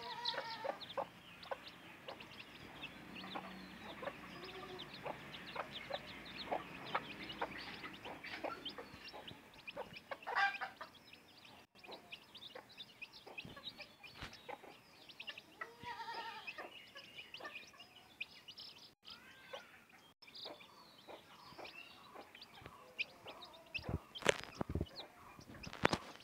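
A brood of baby chicks peeping in quick, high, overlapping chirps as they feed, with a mother hen clucking low now and then. A few sharp taps near the end.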